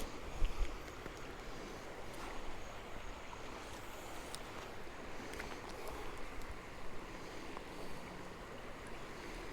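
Flowing river water, a steady rush, with a soft low thump about half a second in.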